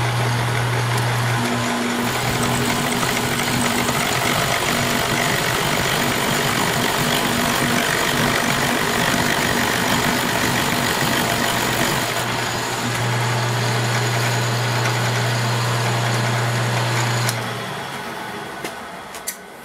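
Milling machine running with an end mill cutting the end of a 6061 aluminum plate: a steady motor hum under a continuous cutting hiss. The noise drops away near the end as the cut stops where the table runs out of travel.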